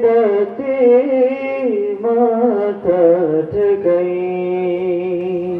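A man singing a Bengali Islamic devotional song (gojol) into a microphone, drawing out long ornamented notes with the pitch sliding between them; about four seconds in he settles on one long held note.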